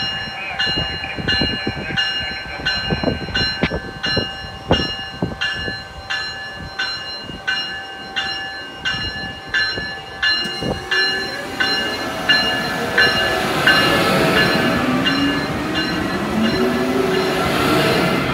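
Amtrak ACS-64 electric locomotive pulling out of a station. Its bell rings about three strikes every two seconds, with wheel knocks over the track. From about twelve seconds in, a rising whine from the traction motors builds as it picks up speed.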